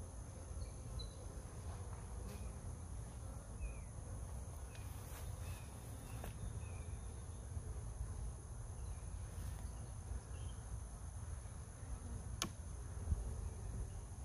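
Honeybees buzzing steadily around an open hive, with a single sharp click about twelve seconds in.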